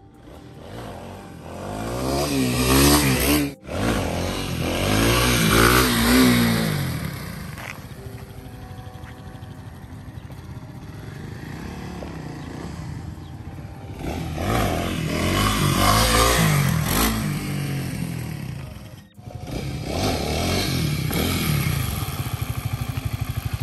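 Kawasaki KLX300 dual-sport motorcycle's single-cylinder four-stroke engine revving up and dropping back several times while riding, with steadier running in between. The sound cuts out sharply twice, about a third of the way in and again near the end.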